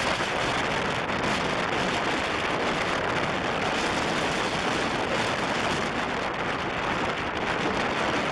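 Strong storm wind buffeting the microphone: a steady rushing noise with an irregular low flutter and no letup.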